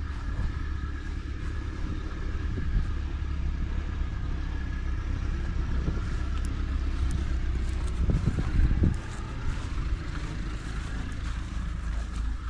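Large old four-cylinder tractor engine running steadily with a low rumble, briefly louder about eight seconds in.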